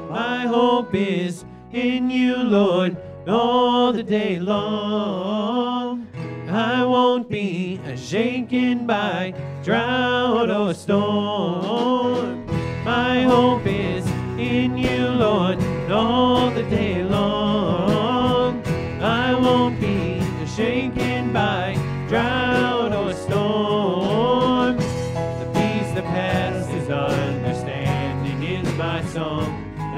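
A song sung with guitar accompaniment, in a country-gospel style, running on without a break.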